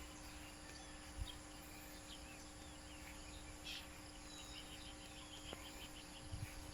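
Faint outdoor ambience: insects buzzing steadily, a few bird chirps and a quick run of short chirps past the middle. There is a soft thump about a second in.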